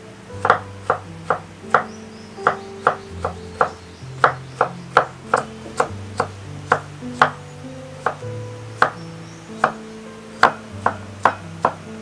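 Kitchen knife chopping vegetables on a wooden cutting board, cutting carrot and squash into thin strips, with quick, slightly irregular strokes about two to three a second. Background music with sustained low notes plays underneath.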